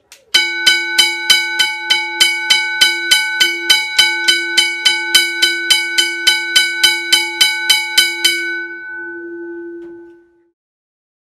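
Vintage 1930s Bryant electric railway level-crossing bell ringing. Its hammer strikes the gong dome about three times a second for some eight seconds, then stops, and the gong rings on and fades out over about two seconds.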